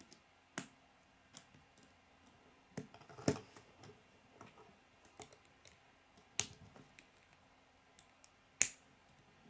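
Plastic K'nex pieces clicking and snapping together as they are assembled by hand, in scattered sharp clicks with the loudest about three seconds in, at about six and a half seconds, and near the end.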